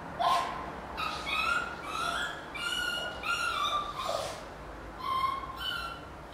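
Small dog whining at a door it is waiting by: about ten short, high-pitched cries, some in quick pairs, with a pause near the end.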